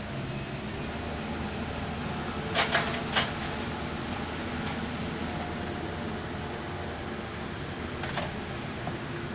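Excavator's diesel engine running steadily, with a quick group of three sharp metallic clanks about two and a half to three seconds in and another near the end.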